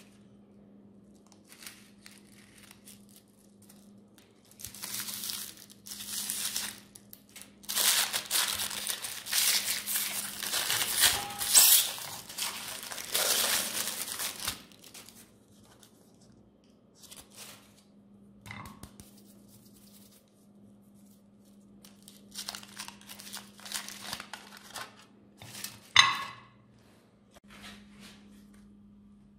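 Clear cellophane candy wrapper crinkling and tearing as it is pulled off a foil-wrapped chocolate umbrella by hand, in irregular bursts that are densest in the middle, with one sharp snap near the end.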